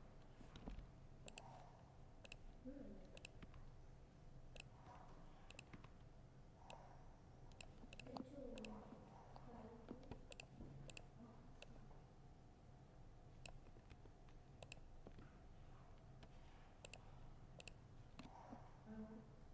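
Faint, irregular clicks of a laptop keyboard being typed on, about one or two keystrokes a second with uneven gaps.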